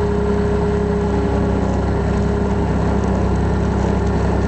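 8875 skid loader's engine running at a steady idle, heard from the operator's seat.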